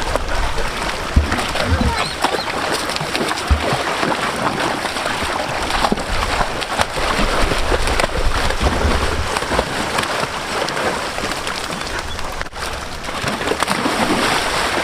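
Water splashing and sloshing as dogs swim and play in a river.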